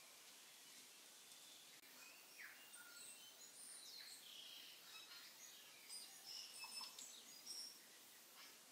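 Faint birds chirping and whistling in short high notes over a low steady hiss, the calls picking up after a couple of seconds and busiest towards the end.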